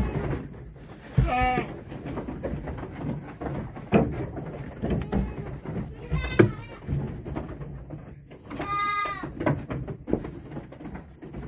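Goats bleating: three separate short calls, the last one the longest, with scattered knocks and rustles in between.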